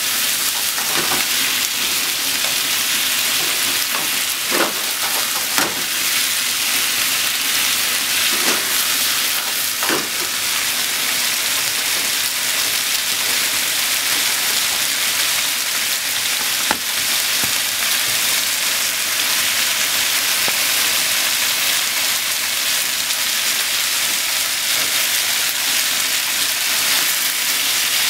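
Chicken and vegetables stir-frying in a frying pan: a steady high sizzle, with a few short knocks of wooden chopsticks against the pan as the food is turned, mostly in the first ten seconds and once more later.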